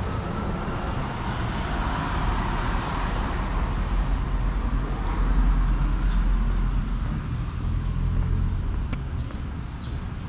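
City street traffic: a motor vehicle passes close by, its engine rumble growing to loudest about halfway through and easing off near the end. A few faint clicks sound over it.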